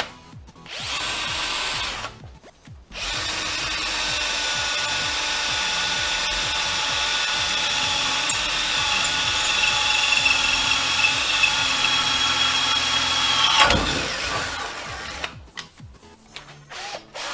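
Parkside cordless hammer drill-driver in drill mode, drilling a 6 mm hole into 3 mm thick steel angle lubricated with cutting oil. A short run, a brief stop, then about ten seconds of steady whining drilling, ending in a sharp knock before the motor stops.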